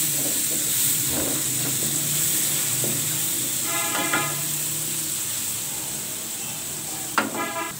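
Chopped onions sizzling in hot cooking oil in a wok, stirred and scraped with a wooden spatula. Two brief pitched tones break in, about four seconds in and again near the end.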